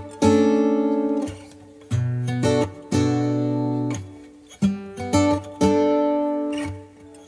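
Background music: an acoustic guitar picking notes and chords, each struck and left to ring and fade before the next.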